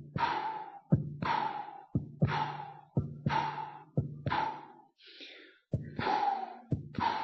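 Recorded heart sounds at about one beat a second: each sharp heart sound is followed by a high-pitched murmur that fades away. This is the early diastolic decrescendo murmur of aortic regurgitation.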